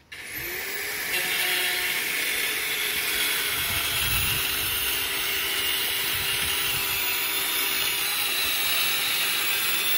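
An electric power tool running steadily with a loud hiss, its motor hum rising in pitch as it spins up at the start.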